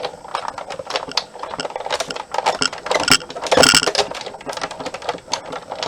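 Paper-crafting tools and cardstock being handled on a desk: a run of irregular clicks and taps, with a louder rustling scrape about three and a half seconds in.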